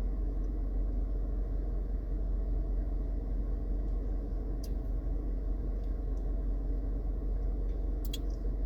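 Steady low rumble with a deep hum underneath, with two faint clicks, one about halfway through and one near the end.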